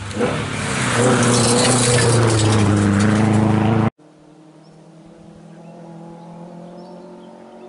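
Rally car passing at speed on a gravel stage, its engine running hard at high revs and dropping in pitch as it goes by, with gravel spraying and stones pattering. The sound cuts off abruptly about four seconds in, leaving a faint engine note from a car in the distance and a few bird chirps.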